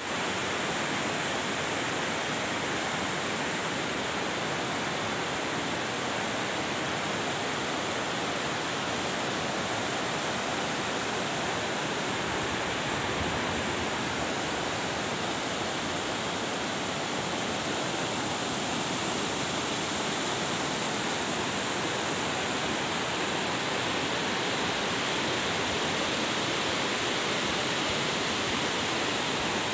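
Steady rushing of a fast, shallow mountain stream tumbling over rocks.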